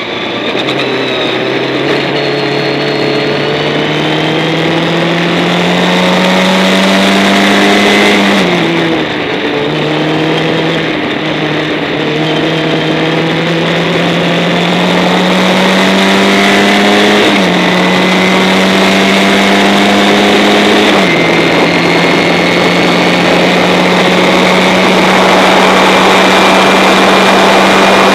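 Formula Ford 1600 racing car's four-cylinder engine under hard acceleration, heard from the cockpit. The revs climb slowly, fall sharply about a third of the way in, climb again with two quick small drops at gear changes, then hold steady near the end.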